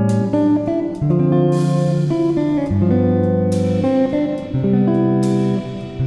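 Instrumental background music with guitar, sustained chords changing every second or so, with a few splashy cymbal-like strokes.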